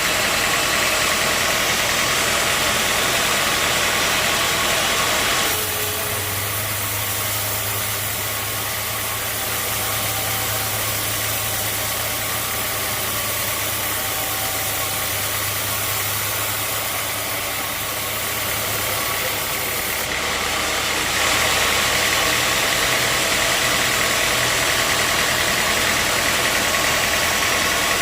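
Sawmill machinery running steadily. From about five seconds in to about twenty-one seconds in it drops a little in level and a low steady hum comes through, then the louder running returns.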